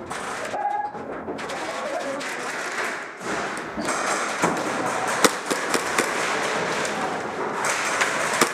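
Indoor airsoft firefight: a steady, noisy clatter of airsoft gunfire and BBs striking plywood walls, with scattered sharp cracks and thuds that thicken about halfway through.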